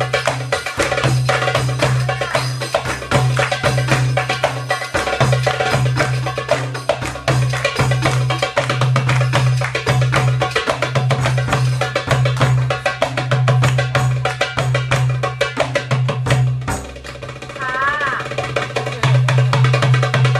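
Live goblet drum (darbuka) solo: a fast, dense stream of hand strokes over a steady low boom. The drumming drops off briefly about three-quarters of the way through, then picks up again.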